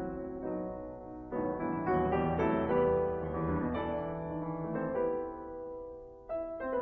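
Slow piano music: ringing chords under a simple melody. It swells about a second in, fades away near the end, and a new chord is struck just before it ends.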